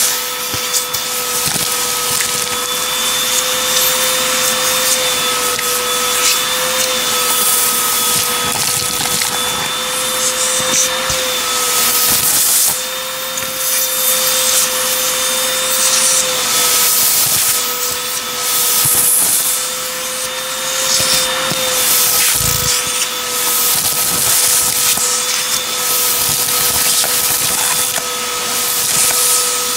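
Vacuum cleaner running with a steady, slightly wavering whine, sucking up a pile of dust and grit through a narrow wand, with grit crackling and rattling irregularly as it is drawn up the tube.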